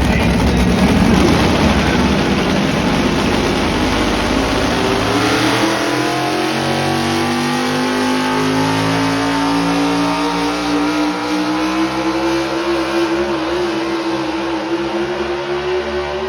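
Pulling truck's engine running at full throttle during a pull, its pitch climbing slowly and steadily, then cutting off abruptly at the end.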